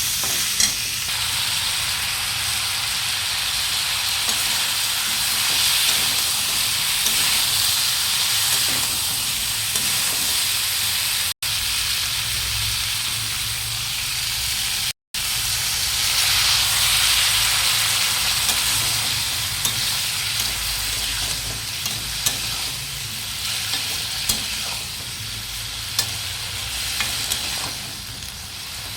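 Raw mango chutney sizzling in a cooking pan as it is stirred, a steady frying hiss. There are scattered light clicks in the second half, and the sound breaks off for an instant twice.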